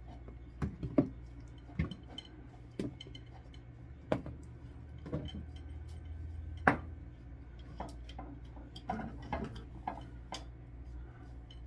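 Salad dressing bottles and jars knocking and clinking against each other and the shelves as they are taken out of a refrigerator: about a dozen separate knocks, the loudest about a second in and near seven seconds.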